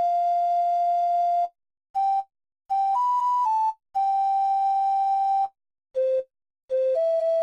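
A toy robot's sound chip playing a simple electronic tune: single steady beep-like notes, one at a time, some held about a second and a half and others short, with brief silent gaps between them.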